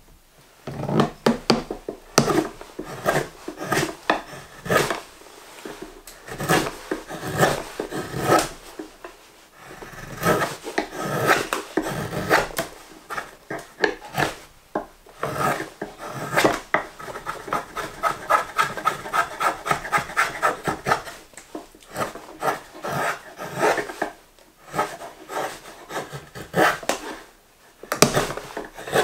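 Svante Djärv drawknife shaving a green maple spoon blank held in a shavehorse: short scraping cuts, about two a second, in runs broken by a few brief pauses.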